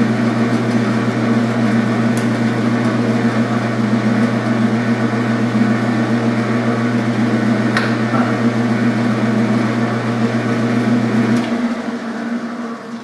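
Small metal lathe running with a steady motor hum while its cutter works on a quarter-inch steel rod. Near the end the lathe is switched off and the hum dies away.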